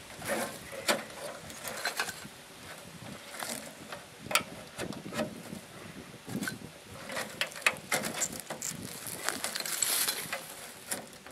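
Sheet-metal parts of a Poshehonka S tent stove clanking and scraping as it is handled and assembled: a run of irregular metallic clicks and knocks.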